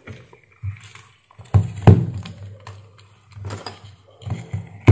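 Handling noise from a small power-supply circuit board with its transformer and loose wires being picked up and turned over on a workbench: a few irregular knocks and rubs, the loudest about two seconds in and again at the end.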